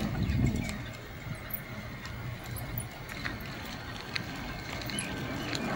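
Sandstorm wind buffeting the microphone of a moving e-bike: an uneven low rumble with a few faint ticks.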